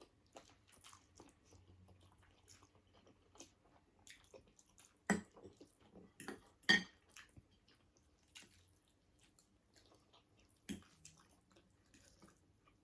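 Close-up chewing and biting of food, soft moist mouth sounds broken by a few sharper clicks and crunches.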